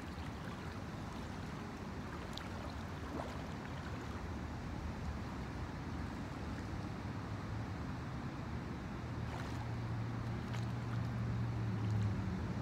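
Steady outdoor rush of wind on the microphone and lake water lapping at the shore, with a low hum that grows louder near the end.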